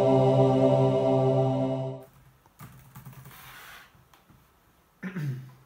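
A held chord of music cuts off about two seconds in, followed by soft typing on a laptop keyboard. Near the end comes a short voice sound, falling in pitch.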